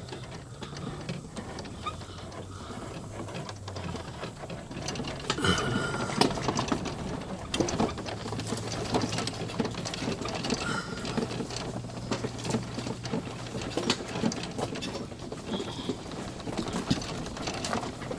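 Golf cart driving over rough ground: a steady low motor hum under constant rattling and knocking as the cart bounces, a little louder from about five seconds in.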